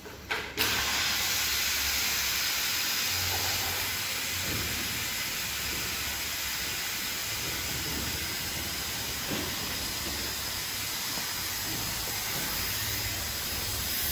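A steady, loud hiss of compressed air, starting suddenly about half a second in, with a low hum underneath.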